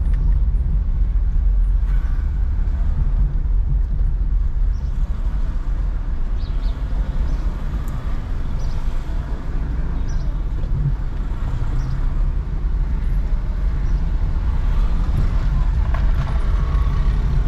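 A car driving in city traffic: a steady low rumble of engine and road noise.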